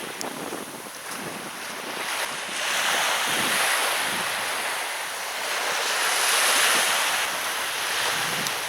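Sea surf washing onto a beach, with wind buffeting the microphone; the wash swells twice.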